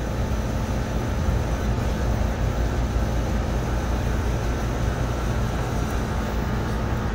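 Steady background drone of running machinery: a low hum under an even rushing noise.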